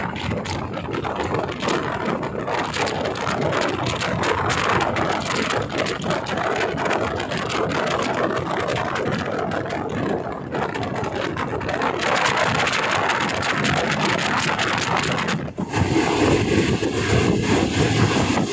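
Passenger train coach running at speed, its wheels on the rails giving a steady rush of rail noise mixed with wind at the open door. About fifteen seconds in the sound dips briefly, then comes back louder and deeper.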